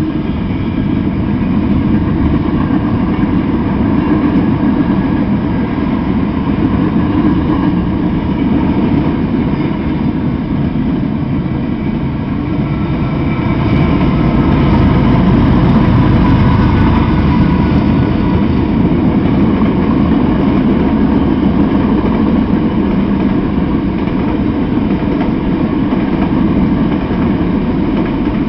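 Freight train cars rolling past: a steady rumble of steel wheels on rail, swelling a little louder about halfway through.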